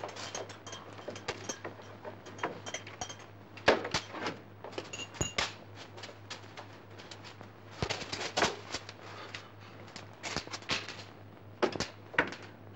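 Keys jangling and clicking at the lock of a barred metal cell door, then the door opening, with scattered metallic clanks and knocks. A low steady hum runs underneath.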